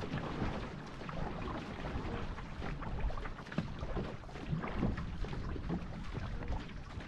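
Water rushing and splashing along the hull of a two-person marathon racing canoe as both paddlers stroke hard, with a low rumble of wind on the microphone.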